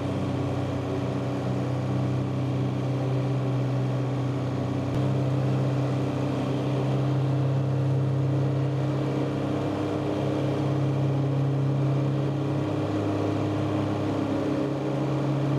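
John Deere 3046R compact tractor's diesel engine running steadily under heavy load while driving a 12-foot Woods Turf Batwing rotary mower through tall, heavy grass; the tractor is near the limit of what it can pull. The note firms up slightly about five seconds in.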